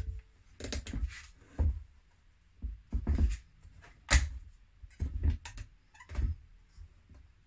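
One-handed plastic quick-release bar clamps being squeezed, shifted and knocked against a wooden workbench as a glue-up is clamped. Irregular clacks, knocks and scrapes, the sharpest knock about four seconds in.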